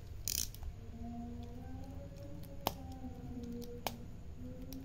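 Plastic and tape wrapping of a small parcel being pulled open by hand: a short crinkle near the start, then two sharp clicks about a second apart. Faint background music underneath.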